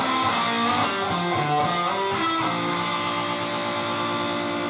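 Overdriven electric guitar, its Lace Sensor Emerald/Purple dual pickup switched to humbucker in series, playing a run of picked notes and then letting a chord ring out from about two and a half seconds in.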